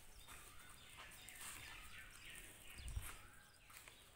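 Faint bird chirps over a quiet background.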